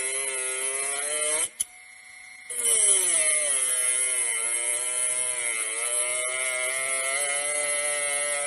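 Cordless angle grinder's motor running with a steady high whine. It cuts off about a second and a half in with a click, then starts up again, its pitch dipping and recovering a few times.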